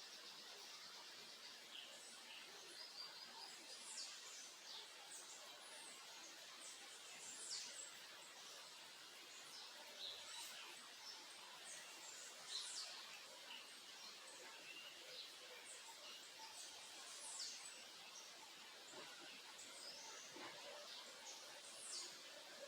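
Faint chirps and short calls of several small birds, scattered irregularly, each a quick sharp note, over a steady faint background hiss.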